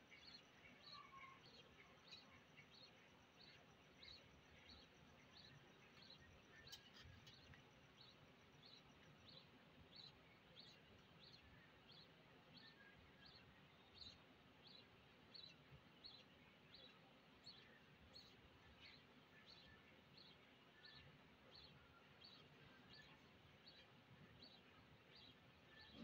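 Faint, steady series of short high cheeps from budgerigar chicks in a nest box, about two a second, over low background hiss.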